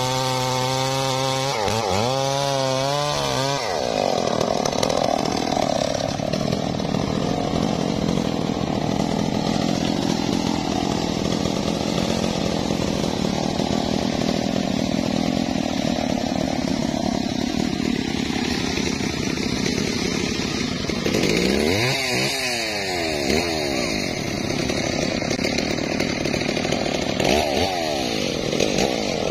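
Stihl MS381 two-stroke chainsaw at full throttle, rising and falling in pitch about two seconds in, then running steadily under load as it cuts into a thick tree trunk. Later the revs rise and fall again twice.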